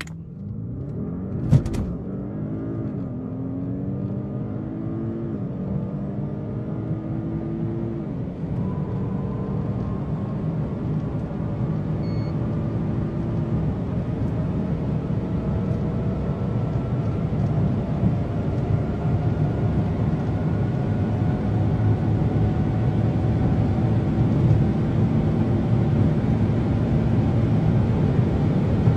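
2016 Audi S8 Plus twin-turbo V8 under full-throttle acceleration from a standstill, heard from the cabin. The engine note climbs and drops back at several quick automatic upshifts in the first half, then rises slowly in the top gears, growing louder as speed builds. There is one sharp knock about a second and a half in.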